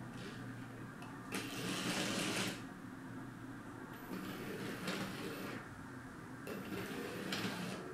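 LEGO 60337 Express Passenger Train's Powered Up motor whirring and its wheels rolling on plastic track as the train runs along the line, stops and reverses under colour-sensor control. There are three louder stretches of about a second each.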